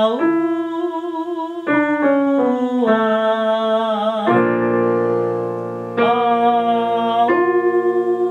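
A woman singing a vocal warm-up on "a" and "u" vowels, an exercise linking chest and head voice, with her pitch stepping up and down and a vibrato on held notes, over a digital piano playing the same notes. About four seconds in, a held piano chord takes over, and a new phrase starts about six seconds in.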